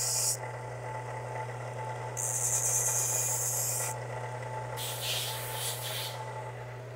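Kalamazoo belt grinder motor running with a steady hum while a small 1911 HRT slide stop is pressed to the abrasive belt to bevel its edges. The hissing grind of metal on the belt comes in passes: one ending just at the start, one about two seconds in lasting nearly two seconds, and a shorter, choppier one about five seconds in.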